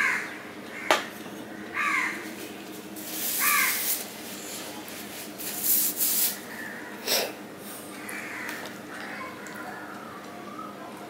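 A crow cawing, three short harsh calls in the first four seconds and a softer wavering call later on. Between them come sharp clicks and a rubbing hiss from fingers working a steel plate.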